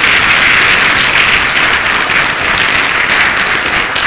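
Audience applauding: many hands clapping at once, steady and loud, beginning to thin a little near the end.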